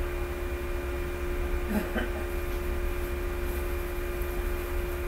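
Steady low electrical hum with a constant higher tone over it, and a faint short sound about two seconds in.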